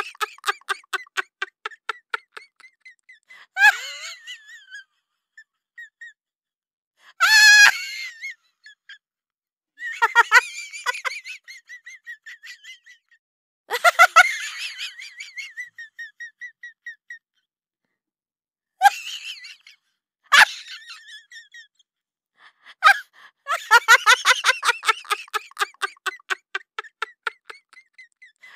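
A high-pitched voice making rapid, stuttering, giggle-like bursts that fade out, several times over, with short squeaky chirps and one high gliding squeal between them.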